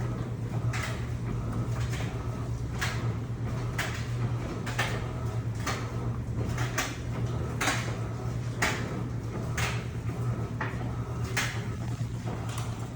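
Electrolux LPE16 washing machine running a wash with a double duvet: a steady motor hum with a swish about once a second as the load and water are worked back and forth.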